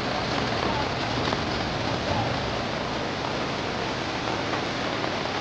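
Heavy rain falling steadily onto a flooded, muddy road: an even hiss of rain and running water with no distinct single events.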